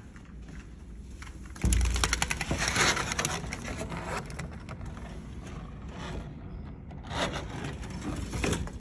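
Vertical window blind slats clattering and rattling against each other as a hand pushes them aside, in two bouts: a loud one starting about two seconds in and a second one near the end.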